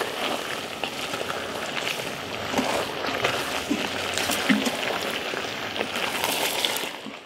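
Intro sound effect under a logo animation: a steady rushing, water-like noise with scattered small pops, fading out near the end.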